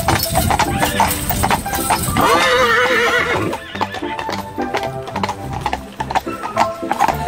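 Hooves of a pair of shod carriage horses clip-clopping on an asphalt path, with a horse whinnying for about a second and a half, about two seconds in. Music plays underneath.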